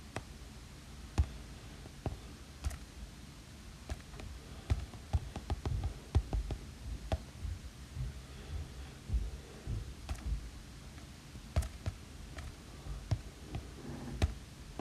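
A stylus tip tapping and clicking on an iPad Pro's glass screen while drawing, in irregular taps with light low thumps and a quick run of taps about five to seven seconds in.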